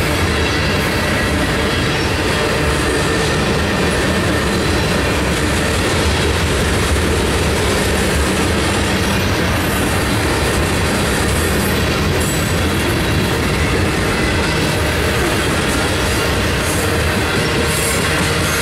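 Freight cars (covered hoppers, open hoppers and boxcars) rolling steadily past at close range: a continuous roar of steel wheels on rail with clickety-clack over the rail joints and a thin high wheel squeal.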